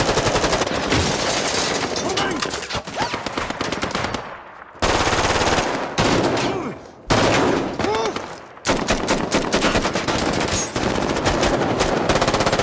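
Automatic assault-rifle fire from several guns in rapid, overlapping volleys, with brief lulls about four and a half, seven and eight seconds in. A few short whines are heard among the shots.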